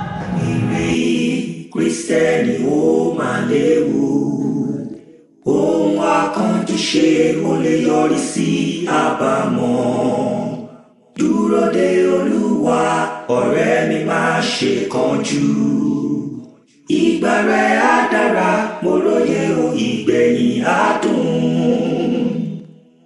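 A group of voices singing a gospel praise song together in four phrases, each about five seconds long, with short breaks between them.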